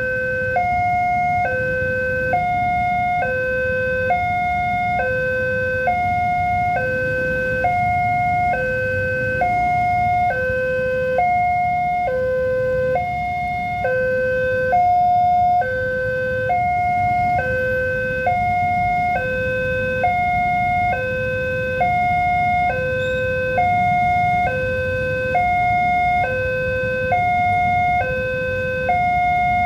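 Railway level-crossing warning alarm sounding while the barrier is down, warning that a train is approaching: an electronic two-tone signal alternating between a lower and a higher tone, each held about a second, over a steady low rumble.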